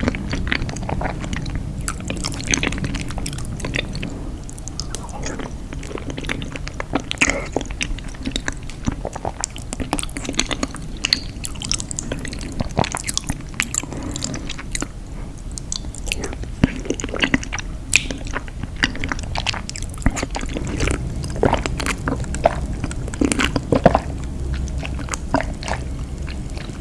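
Close-miked mukbang eating sounds: a person biting and chewing cheesy food with many irregular wet clicks and crunches, over a steady low background hum.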